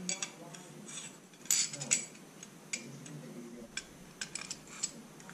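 Light metal clicks, clinks and scrapes of 1911 pistol parts being fitted together during reassembly: the barrel handled and the slide assembly being slid onto the frame. The clicks are irregular, with a few louder ones about one and a half to two seconds in.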